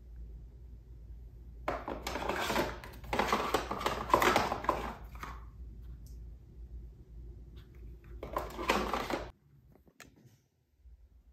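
Small clear plastic storage boxes being handled, the plastic rattling and scraping in three bursts, the longest one in the middle, over a low steady hum.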